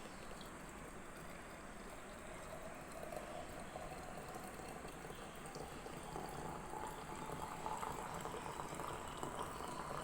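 Water filling a container, its note rising slowly as the vessel fills over a steady hiss of running liquid.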